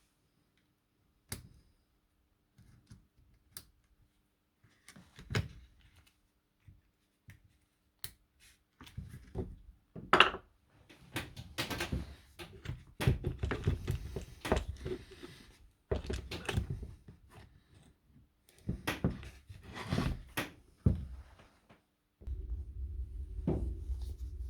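Scattered clicks, taps and knocks of small parts being handled and fitted, as new carbon brushes go onto the brushed motor of a Milwaukee HD18HIW impact wrench; the handling grows busier about halfway through. A steady low hum starts near the end.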